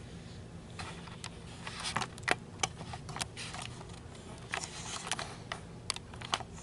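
Hands working yarn through a knitted sweater cuff while seaming it by hand: irregular light clicks and rustles, a dozen or so, over a low steady hum.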